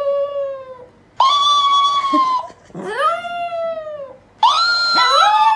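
Chihuahua howling: four long howls one after another, each about a second, rising and then sliding down in pitch. Near the end two howls overlap.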